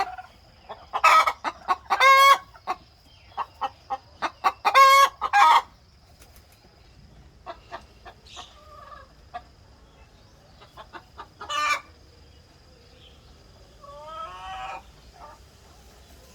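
Chickens clucking in quick runs, with several loud, drawn-out calls in the first six seconds and another just before twelve seconds; softer clucks and calls follow.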